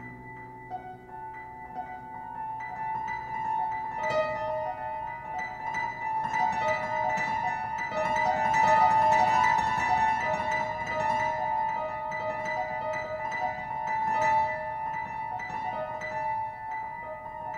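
Solo piano playing a contemporary piece: quick high runs and repeated notes over long pedalled tones that keep ringing. It swells louder towards the middle and eases off again near the end.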